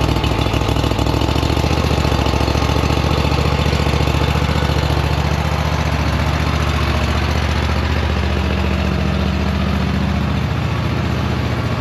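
Toro Titan MAX zero-turn mower engine running steadily after starting, its choke set by hand because the broken choke cable was not moving it.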